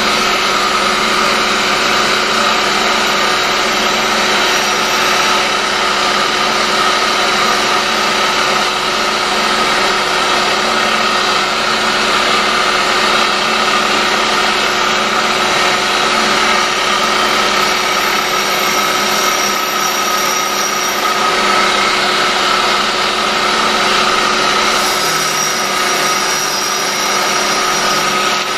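Vacuum cleaner running steadily, its hose nozzle held up to a spinning grinding wheel, with the motor of a home-built tool-and-cutter grinder running underneath while the wheel is dressed with a diamond dresser.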